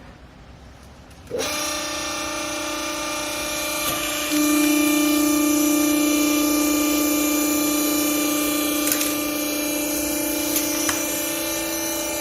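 Used-clothes baler's hydraulic pump motor starting suddenly and running with a steady hum, turning louder about three seconds later as it works.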